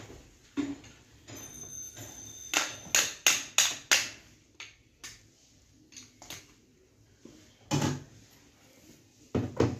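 Sharp clicks and knocks of hands and tools working on the plastic back cover of an LED TV as it is being opened. A brief high ringing, like a small metal part, comes just before a quick run of about five clicks, followed later by a few scattered clicks and one louder knock.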